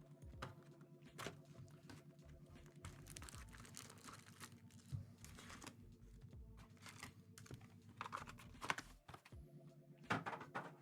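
Trading cards and foil pack wrappers being handled: faint, irregular light clicks with a few short rustles, over a low steady background tone.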